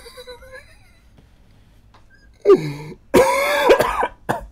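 A man laughing hard with his hands over his mouth: quiet at first, then loud bursts of laughter from about two and a half seconds in, the longest a little after three seconds, and a short last burst near the end.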